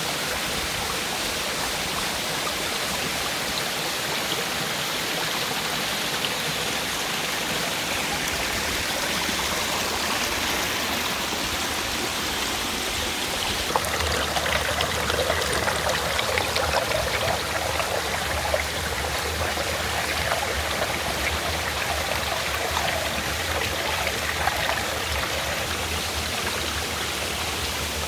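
Waterfall water rushing and splashing steadily, turning louder and more splashy about halfway through.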